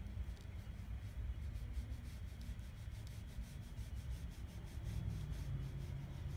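Paintbrush stroking white paint onto a wooden board: a soft, repeated brushing and rubbing, over a low background rumble.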